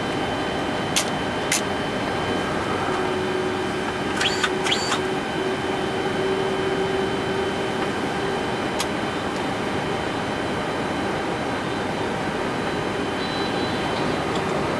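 Steady flight-deck noise of a Boeing 747-400ERF with all four engines running at idle and the APU running, a constant hum with several fixed tones. A few sharp switch clicks come about a second in, in a quick cluster around four to five seconds, and once near nine seconds.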